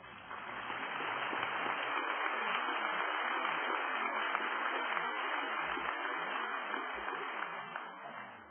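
Audience applauding, swelling over the first couple of seconds, holding steady, then dying away near the end.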